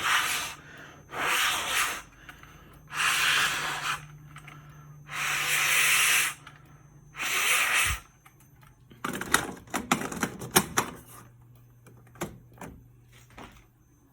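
A person blowing hard into an i3 smoke detector five times, each blow a rush of breath about a second long, to clear the canned test smoke from its chamber so it will not go back into alarm. This is followed by a quick run of clicks and rattles from handling the detector.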